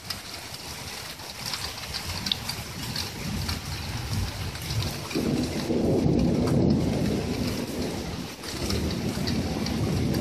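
Heavy rain from a typhoon pouring down steadily. A deeper rumble swells about halfway through and eases off toward the end.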